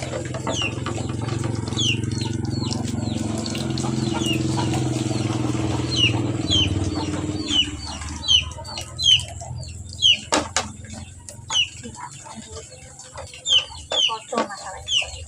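Water running from a tap with a low hum, stopping about halfway through, then scattered knocks and clatter of things being handled. All through, short high falling peeps of chickens repeat.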